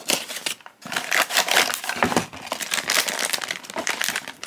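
Blind-box packaging being opened by hand: irregular crinkling and rustling, with a short lull about a second in.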